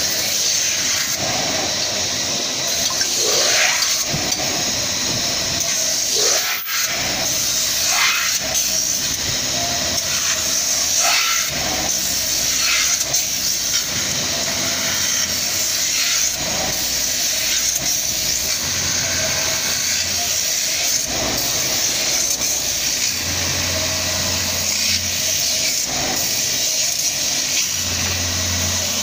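CNC metal-spinning lathe running, its forming roller pressing a spinning metal blank over the mandrel to shape a cake pan: a steady, loud, hissing machine noise with short sweeping tones every few seconds in the first half.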